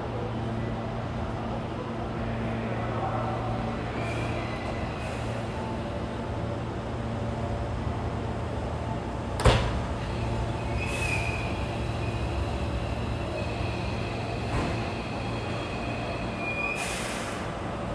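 Hankyu 7000-series electric train pulling in and standing at the platform, with a steady low hum of its equipment. Faint high squeals come and go, and there is one sharp knock about halfway through and a short hiss near the end.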